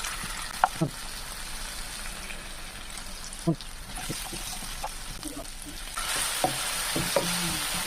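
Food frying in hot oil in a pan, a steady sizzle that grows louder about six seconds in, with a few light knocks of a utensil against the pan.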